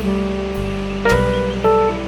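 Instrumental background music of plucked acoustic guitar notes, a new note struck about every half second.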